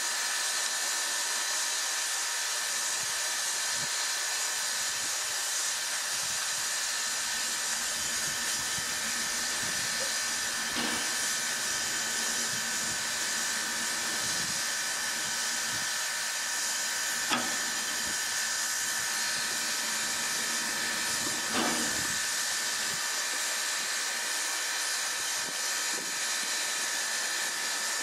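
Steam locomotive standing and hissing steam steadily. Three short sharp knocks come through the hiss, as a hand-thrown track switch is worked.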